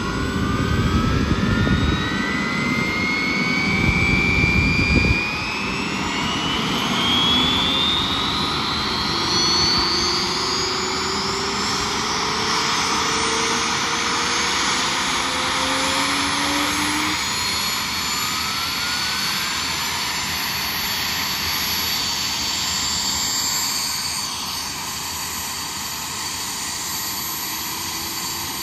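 Boeing CH-47 Chinook's turbine engine spooling up at start: a whine that rises over the first ten seconds or so, then holds at a steady high whine and rush as the rotors begin to turn. A low rumble underneath stops suddenly about five seconds in.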